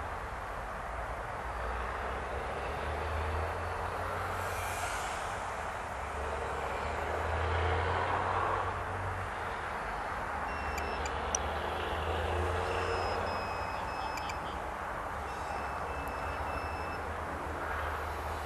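Road traffic with trucks: a steady low rumble with swells as vehicles pass. Between about ten and seventeen seconds in there is a series of short, high, steady beeps.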